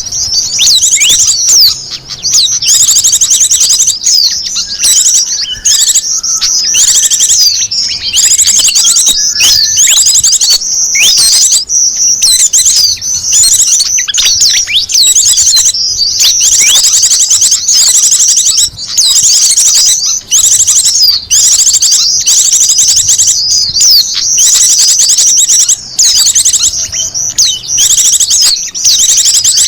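Small wild birds' high-pitched chirping and very rapid trills, dense and almost unbroken apart from a few brief gaps, played as a lure call for trapping small birds.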